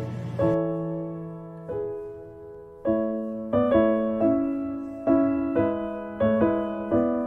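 Soft background piano music: slow, gentle notes and chords that each ring out and fade.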